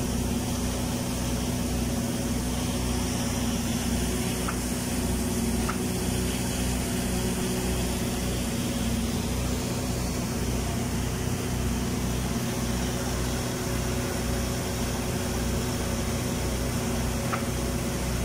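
Automatic girth welding machine running a submerged-arc weld along a horizontal tank seam at about 420 amps and 27 volts. It gives a steady machine hum with a low, evenly pulsing throb and a few faint ticks.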